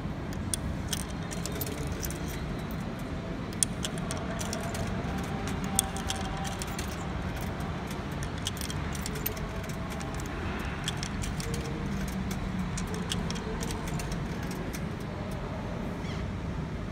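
Euro coins clinking as they are fed one at a time into the coin slot of a ticket vending machine. There are many small metallic clicks, two sharper clacks about four and six seconds in, and a steady low hum underneath.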